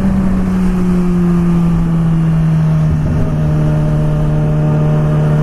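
Yamaha R6 sport bike's inline-four engine running at a steady cruise, its note drifting slowly lower.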